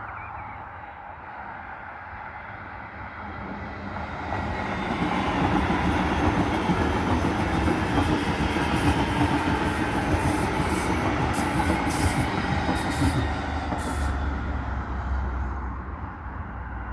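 Train running through a station, its wheels on the rails rumbling louder from about four seconds in and fading near the end. High-pitched squeaks come in short bursts in the middle of the pass.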